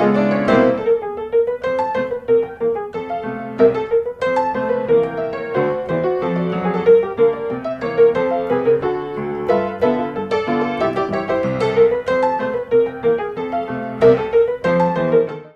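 Background piano music: a light melody over a steady stream of notes, cutting off at the end.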